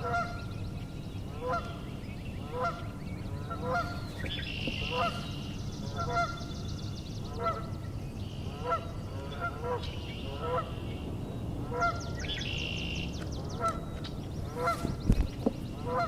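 Geese honking in a steady series, about one honk a second, with a songbird's buzzy high trills laid over it a few times. A dull thump sounds near the end.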